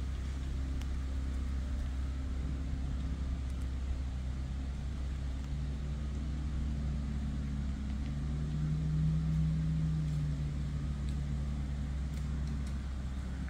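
Distant engine drone that swells to its loudest about nine seconds in and then fades, over a steady low rumble.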